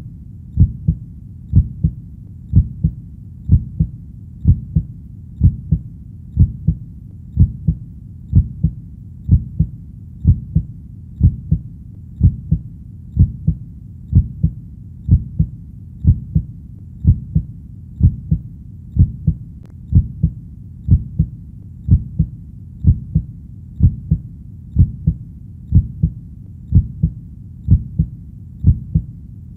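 Heartbeat sound: steady paired lub-dub thumps, low and dull, about one beat a second.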